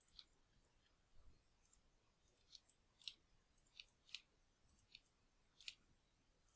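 Faint computer mouse clicks, a dozen or so at irregular intervals, over near-silent room tone.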